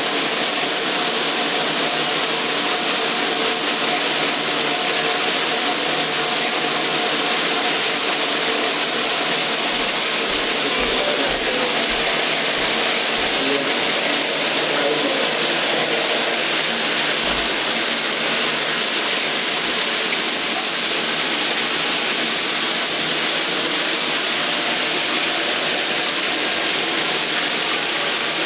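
Shower running: water spraying from a square rain showerhead onto a stone pebble-mosaic tile floor, a steady even hiss of falling water.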